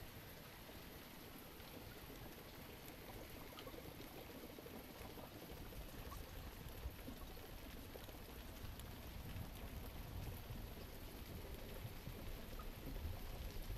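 Faint, steady water ambience: a soft hiss of running or falling water with scattered small drips, getting a little louder near the end.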